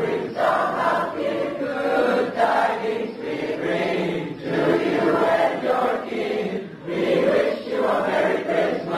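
Large choir of mixed boys' and girls' voices singing together, with a short break between phrases just before seven seconds in.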